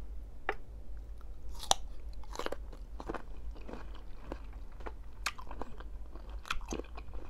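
Close-miked crunching and chewing of raw cucumber, a string of irregular sharp crunches, loudest a little under two seconds in.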